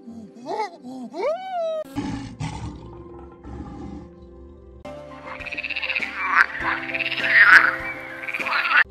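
Animal calls in turn over a faint steady music bed: first a few monkey calls that rise and fall in pitch, then a low lion growl, then, loudest, a tree frog's fast rattling croaks from about five seconds in that cut off sharply just before the end.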